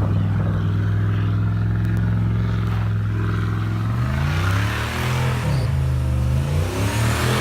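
A vehicle engine runs at a steady pitch, then from about four seconds in revs up and down repeatedly while a rushing noise grows under it.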